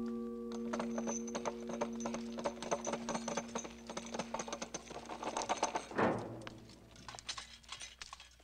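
A ringing bell tone cuts off about half a second in. It gives way to a rapid, irregular clatter of boots and armour on stone lasting about five seconds. About six seconds in comes one heavy impact with a sound that slides down in pitch, followed by sparser clatter.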